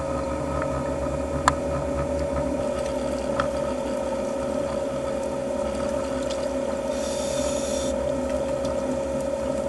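Underwater ambience picked up by the camera: a steady hum holding one pitch over a low rumble. There is a sharp click about one and a half seconds in and a fainter one a couple of seconds later. A brief high hiss comes about seven seconds in and lasts about a second.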